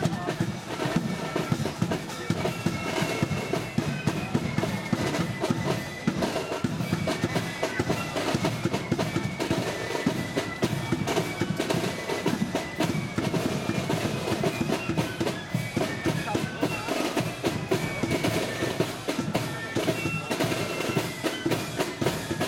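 Marching flute band playing a march: flutes carry the tune over steady bass drum and side drums.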